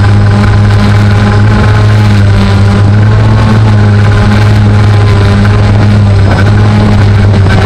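Quadcopter drone's motors and propellers humming steadily and loudly, heard from its onboard camera as it descends.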